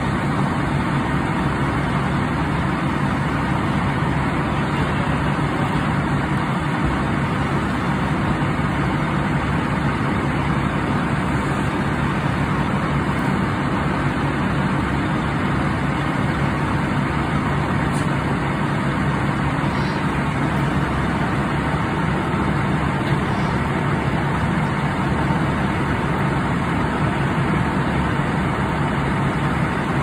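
Fire engine's diesel engine running steadily while it pumps water to the hose lines: a continuous, unchanging low hum.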